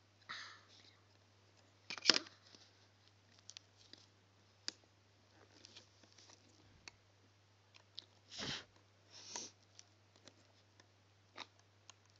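Faint scattered clicks and rustles of rubber bands and a plastic hook tool being worked over the pegs of a plastic band loom, with one sharper click about two seconds in and a couple of short rustles past the middle. A steady low hum runs underneath.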